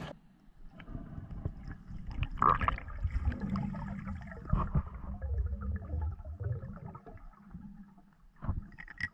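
Underwater sound picked up by a camera in its waterproof housing: a low, muffled rumble with scattered small clicks and knocks as the diver moves through the water, louder about two and a half seconds in, and a couple of sharper knocks near the end.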